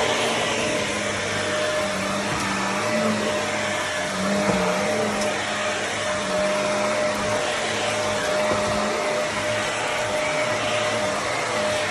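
Shark vacuum cleaner running steadily on carpet, a constant rushing noise with a steady mid-pitched whine and a lower hum that wavers slightly.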